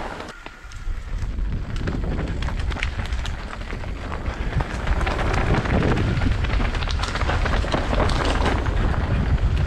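2023 S-Works Enduro mountain bike descending a rough trail. Wind buffets the camera microphone, the tyres run over dirt, and the bike rattles with frequent clicks and knocks. It is briefly quieter just after the start, then steady.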